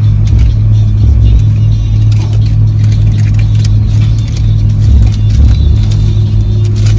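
Loud, steady low rumble of a car interior, with irregular deep bass thumps from music playing through the stereo.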